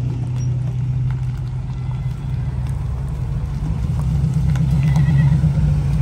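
Dodge B300 Minnie Winnie motorhome's V8 engine running as it pulls slowly up the driveway, a low steady rumble that grows louder over the last couple of seconds as it comes alongside.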